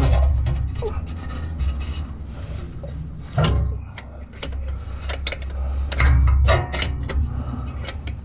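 Rubbing and scraping with scattered metallic clicks and knocks as a wrench works the clutch cable's retaining clip into place under a car's dashboard, with heavier scrapes about three and a half seconds in and again around six seconds.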